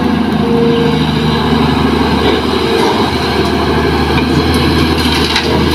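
Kobelco SK200 hydraulic excavator's diesel engine running steadily under load as it digs soil and swings it over to a dump truck.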